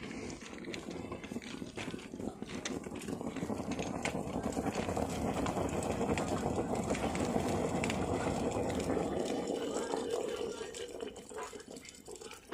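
Thermite (alumino-thermic) rail-weld charge burning: a dense rushing noise that swells over several seconds, holds, then dies down near the end.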